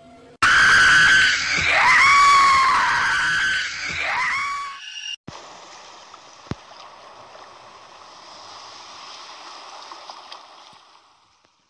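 A loud shrieking scream sound effect, its pitch swooping and wavering, for about four and a half seconds. It cuts off suddenly and is followed by a quieter steady rush of water that fades out near the end.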